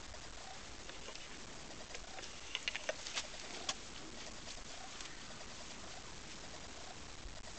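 Faint bird cooing, with a short cluster of light clicks about three seconds in.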